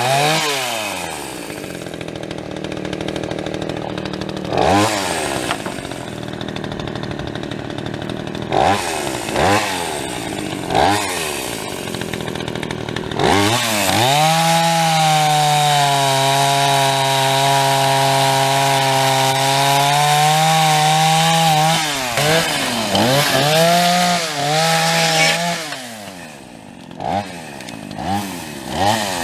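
Gas chainsaw revving up and down in short bursts, then held at full throttle for about eight seconds in a long cut through wood, its pitch sagging a little under load. It drops back and revs in quick bursts near the end.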